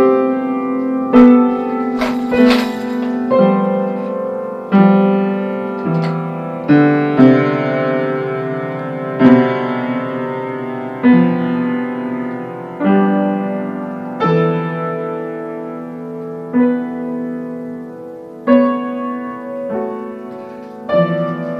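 Acoustic piano played by a young child improvising: slow, uneven chords and single notes in the middle register, struck every second or two and left to ring on into one another.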